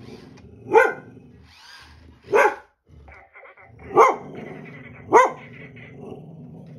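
A dog barking at a remote-controlled R2-D2 toy droid: four sharp barks, spaced about one to one and a half seconds apart.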